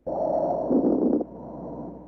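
Breath sounds heard through a stethoscope: a rushing breath lasting a little over a second, then a fainter, quieter phase of the breathing cycle.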